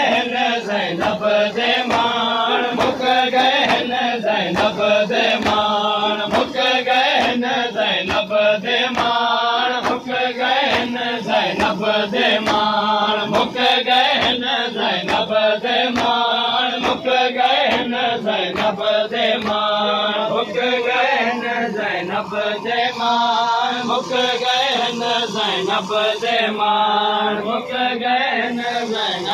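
Male voices chanting a noha, a Shia lament, over a steady rhythm of palms slapping bare chests in matam.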